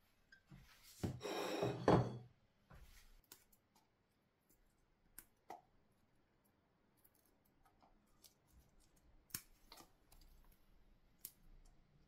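Fresh basil leaves being snapped off their stems by hand: scattered small sharp snaps and leaf rustles. A louder rustle and scrape comes about a second in.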